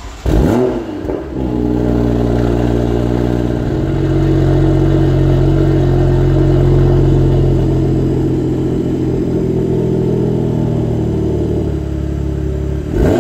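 BMW M2's turbocharged straight-six starting up through a Scorpion 80 mm turbo-back exhaust with a decat downpipe: a quick flare of revs as it fires, then settling within a second or so to a steady idle. Just before the end the revs begin to rise again.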